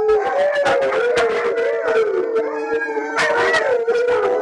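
Several husky-type dogs howling together in a chorus, long wavering howls overlapping at different pitches.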